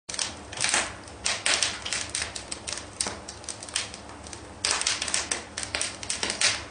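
A quick, irregular run of sharp clicks and taps in clusters, like typewriter keys being struck.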